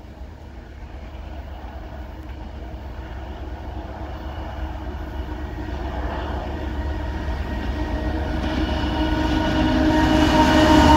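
Twin-section 2TE116U diesel locomotive hauling a loaded container train as it approaches. Its diesel drone grows steadily louder, and the engine's pitched tones come through more strongly over the last few seconds as it nears.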